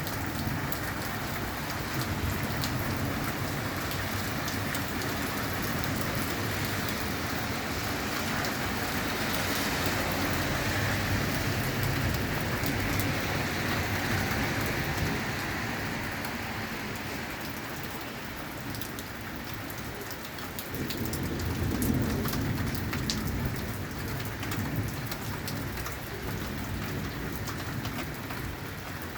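Steady rain falling during a thunderstorm, with low rolling thunder that swells and fades in the middle and rises again about two-thirds of the way through.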